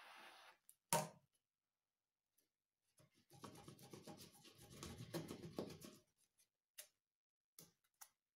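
Fingers rubbing and rolling a torch-singed end of natural-fibre rope, a soft scratchy rustle from about three to six seconds in. A single sharp click comes about a second in, and a few faint ticks near the end.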